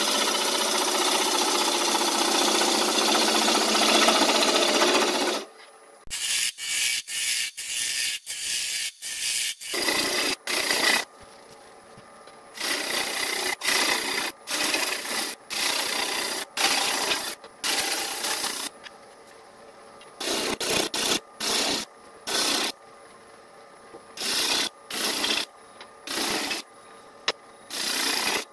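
Bowl gouge cutting into a spinning fruitwood bowl blank on a wood lathe, hollowing out the centre. One steady cut for about five seconds, then a run of many short cuts with quiet gaps between them.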